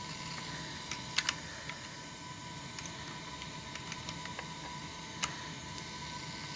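Light clicks and taps of hands working the plastic steering linkage of an RC car as the link is twisted to adjust the alignment. There is a quick double click a little after a second in and another click about five seconds in, over a faint steady high tone.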